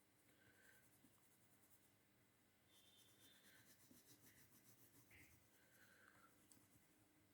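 Very faint scratching of a colouring tool stroking across paper, almost at the level of silence.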